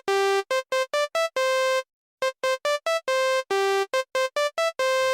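Background music: a bouncy melody of short single notes, with a brief pause about two seconds in.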